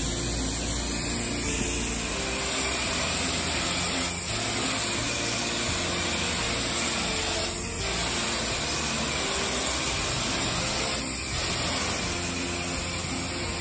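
Pressure washer spray gun spraying house-wash chemical in a steady hissing mist, with the spray dropping out briefly three times.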